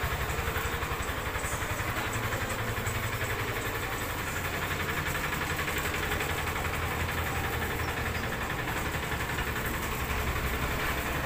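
Volvo FM420 truck's diesel engine idling steadily, a low, even throb.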